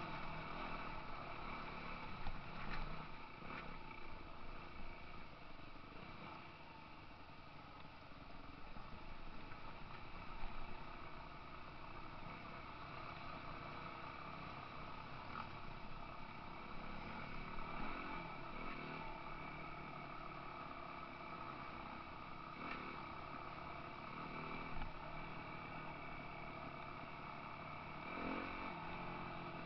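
Dirt bike engines running at low speed over a rough track, rising and falling in pitch several times as the throttle opens and closes, with a few knocks from the rough ground.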